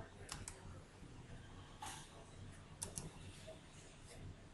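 A few faint clicks from operating a computer's mouse and keyboard: a quick pair, a single click, then another quick pair, over a low steady hum.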